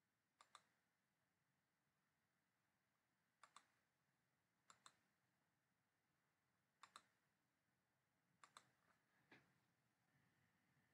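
Faint clicks of a computer mouse button, six times at uneven intervals, most of them a quick double tick of press and release.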